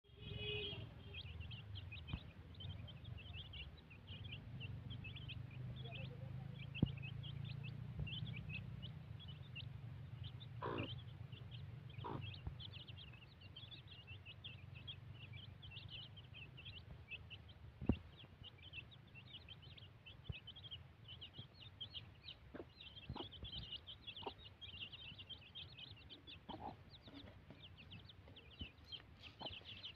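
A brood of chicks peeping nonstop in quick, high chirps while pecking at rice, with a hen clucking now and then. Two sharp taps stand out, one about a quarter of the way in and one past the middle.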